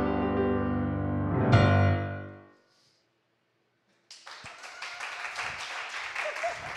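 A keyboard with a piano sound holds the song's final chord, strikes it again about one and a half seconds in, and lets it die away. After a short silence, audience applause starts just past the four-second mark.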